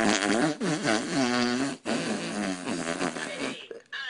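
Long, buzzing fart sounds that come in three stretches, the pitch wavering up and down. They break off briefly twice and stop shortly before the end.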